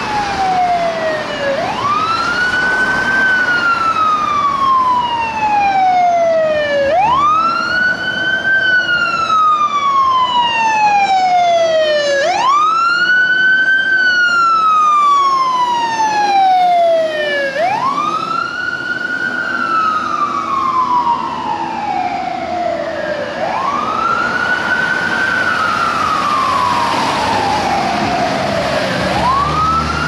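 Fire engine siren on a slow wail: each cycle rises quickly, then falls slowly, repeating about every five seconds. A second siren overlaps briefly midway, over passing traffic.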